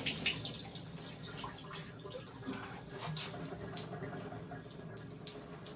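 Water splashing and dripping in a bathtub during a dog's bath, with many short irregular splashes and drips.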